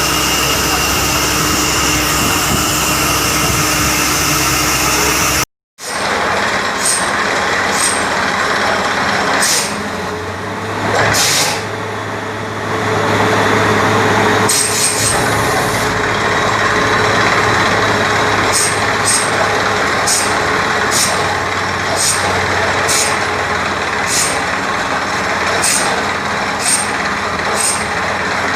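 Borewell drilling rig running, a steady loud hiss and rumble of compressed air and machinery. It cuts out for a moment about five seconds in, then runs on, with a regular sharp clicking about once a second in the second half.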